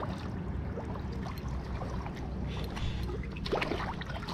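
Shallow water sloshing and trickling as a hooked garrick is brought in, with a few sharper splashes near the end.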